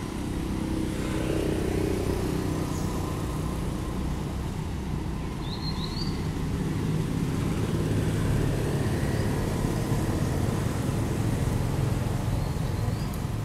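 A steady low engine rumble, like a motor vehicle running, throughout. A couple of short high chirps about six seconds in.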